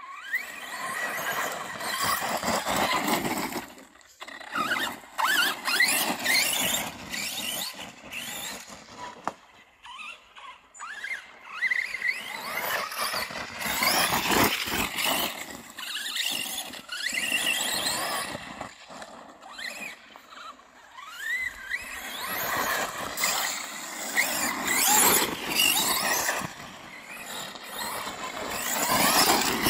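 Arrma Kraton 4S RC truck's brushless electric motor and drivetrain whining, the pitch rising and falling with repeated bursts of throttle, over tyre noise on dirt and gravel. The sound eases off briefly about ten seconds in and again about twenty seconds in.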